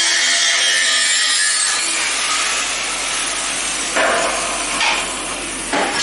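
Angle grinder cutting through 60x40 mm, 2 mm-wall steel box tubing, a steady high hiss that ends about two seconds in. Sharp metal knocks follow, about four seconds in and again near the end.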